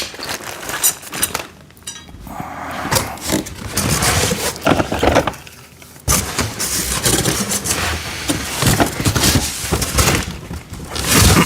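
Plastic parts bins and metal rack pieces clattering, knocking and scraping as they are unpacked and set down, with a sudden loud clatter about six seconds in.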